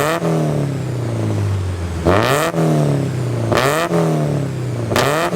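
Porsche 944's 2.5-litre 8-valve four-cylinder engine being blipped four times, each rev rising sharply with a brief crack at the top and then falling back toward idle.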